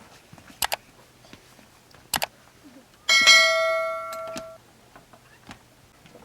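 Two quick double clicks, then a single metallic strike that rings like a bell and dies away over about a second and a half.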